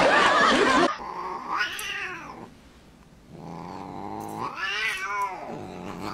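A Siamese cat yowling twice. Each is a long, drawn-out call that rises and falls in pitch, and the second is longer and louder. Before that, a loud noisy stretch cuts off about a second in.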